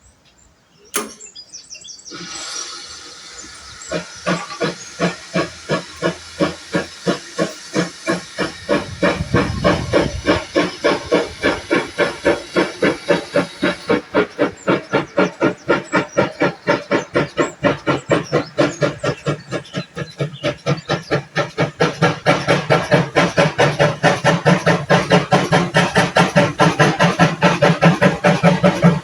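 Steam locomotive pulling away: a hiss of steam, then exhaust chuffs that come steadily faster as it gathers speed, growing louder near the end.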